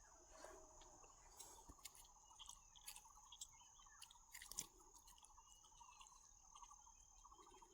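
Faint insects chirring: a fast steady trill and a continuous high whine, with a few soft clicks.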